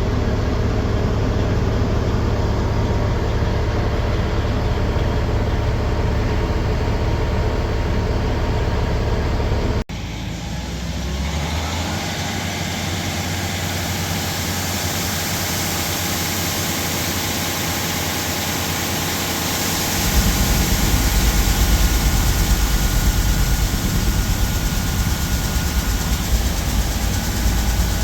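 Heavy engine running steadily. About ten seconds in it cuts abruptly to another machine running, with a whine that rises to a steady high tone; the low rumble grows louder about ten seconds after that.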